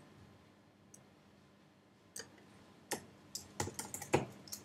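Typing on a computer keyboard: quiet at first, then a run of uneven keystrokes starting about two seconds in.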